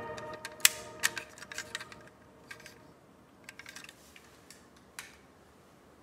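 Small metal and plastic clicks and knocks from a diecast model Land Rover Defender being handled and sent rolling across a wooden floor. The sharpest click comes about two-thirds of a second in, followed by scattered lighter clicks that thin out.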